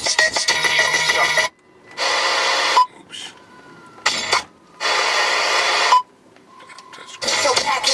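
Hip hop music with abrupt stop-start breaks: several loud bursts separated by near-silent gaps before the full beat comes back in near the end.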